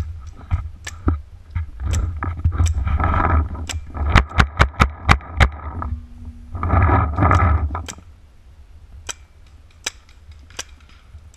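Paintball markers firing: scattered sharp pops, with a rapid string of about eight shots roughly four seconds in. Between them, branches and brush scrape and rustle against the helmet-mounted camera, with low rumbling handling noise on the microphone.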